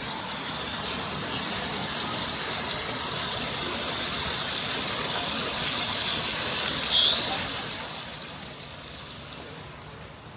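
A steady high hiss swells over several seconds and then fades away, with one short, sharp high chirp about seven seconds in.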